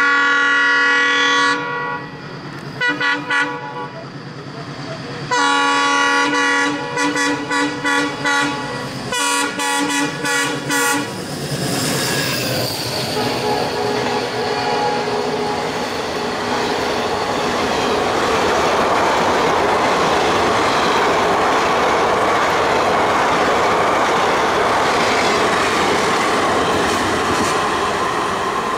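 ALCO diesel locomotive's horn: a long blast, a couple of short toots, then a long blast breaking into a string of short toots. After that the passenger coaches run past with a steady rolling rumble of wheels on rail.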